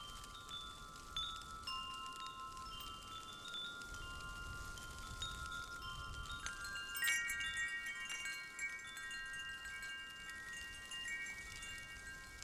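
Quiet chime tones ringing out one after another and holding, overlapping in a soft high wash, with a brighter cluster of new notes about seven seconds in.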